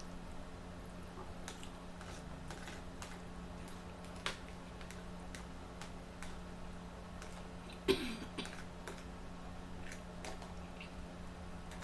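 Mouth and table sounds of eating close to the microphone: scattered small clicks and smacks of chewing and utensils over a steady low hum, with one louder short sound about eight seconds in.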